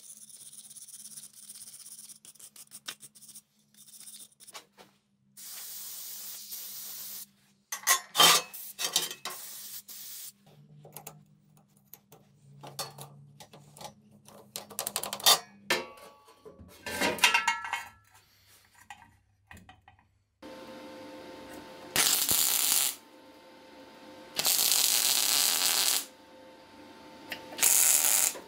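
Steel tools and parts handled and clanking on a steel welding table, with scattered clicks. In the last third a MIG welder hums steadily and the torch fires three short bursts of welding crackle, each a second or two long.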